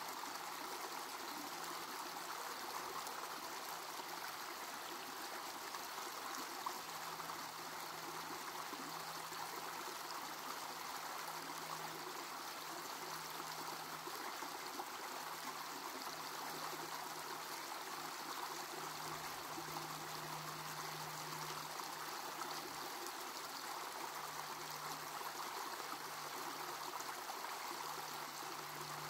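Shallow creek running over rocks: a steady, even trickling and burbling of water.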